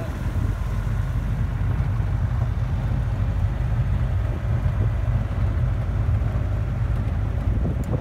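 Pickup truck driving along a gravel road, heard from the open back: a steady low engine and tyre rumble, with wind buffeting the microphone.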